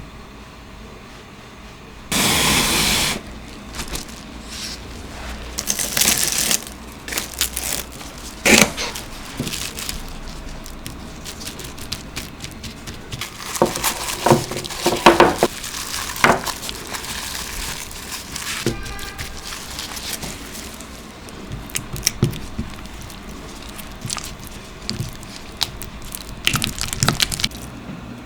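Kitchen handling sounds of baking preparation: a loud one-second rush of noise about two seconds in, then scattered crinkling, scraping and clicking of utensils and containers, with a run of knocks around the middle.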